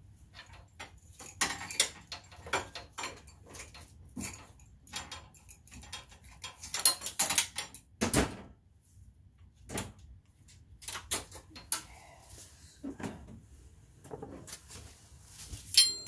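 Metal tools and brake parts being handled in a workshop: irregular clicks, knocks and scrapes, with a sharp ringing metallic clink near the end.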